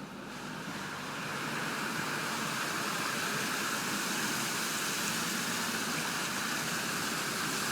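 Steady rush of the flooded Río Guadiaro's floodwater, getting louder over the first second or so and then holding even.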